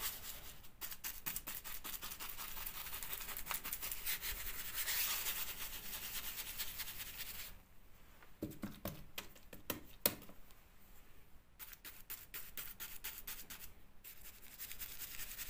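Paintbrush bristles scrubbing a first coat of paint into a textured wall: a steady, scratchy brushing made of many quick strokes. It drops away about halfway through, leaving a few lighter strokes and a click, then picks up again near the end.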